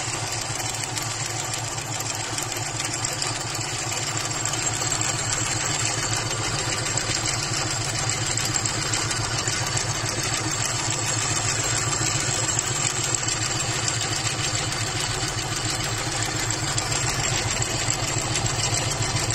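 Aari chain-stitch embroidery machine running steadily, its needle stitching at a fast, even rate over a steady motor hum.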